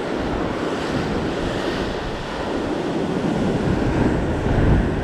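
Sea surf washing against rocks, a steady rush mixed with wind buffeting the microphone.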